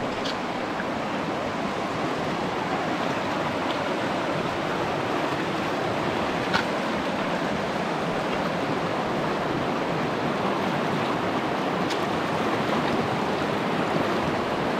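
River water rushing steadily, with three faint clicks over it.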